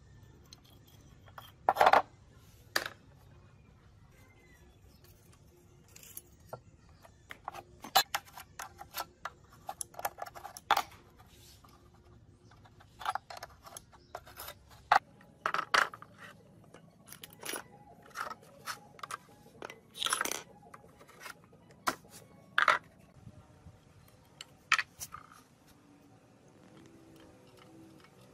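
Metal tools and steel engine parts clinking and clanking as a small four-stroke engine is taken apart by hand: an open-end wrench working on bolts and loose parts set down. The sounds are scattered sharp knocks and clicks, several loud ones, thinning out near the end.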